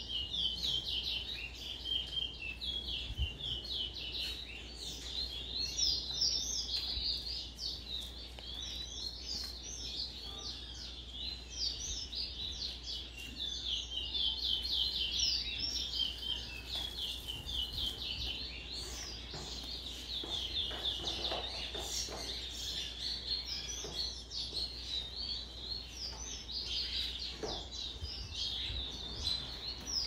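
Caged towa-towa seed finches singing: long, fast runs of short high chirping notes that go on almost without a break.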